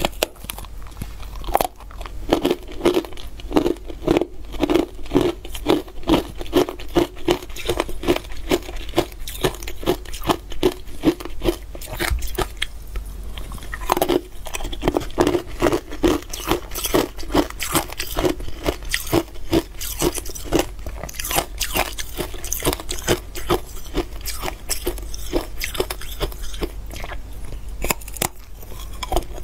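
Close-up crunching and chewing of a block of ice coated in matcha powder: many rapid, irregular cracking crunches as it is bitten and chewed, with a few louder snapping bites.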